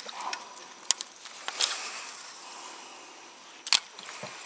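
Fishing tackle handled in a small boat: two sharp clicks about three seconds apart, the second the louder, with a short rush of splashing water between them.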